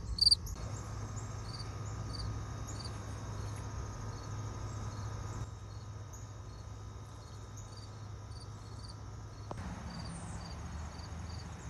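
Field cricket chirping, about two short high chirps a second, loud at first and fainter after.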